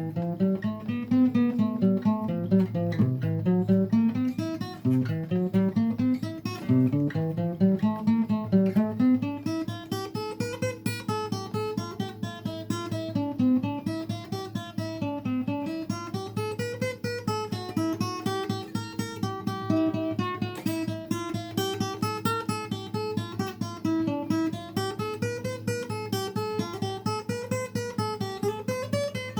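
Acoustic guitar played alone, picked notes in flowing runs that climb in the first several seconds and then rise and fall over and over.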